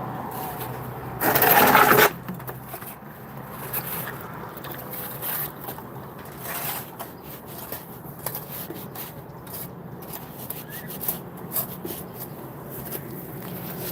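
Scraping and rubbing noises, with one loud burst of rushing noise lasting under a second about a second in.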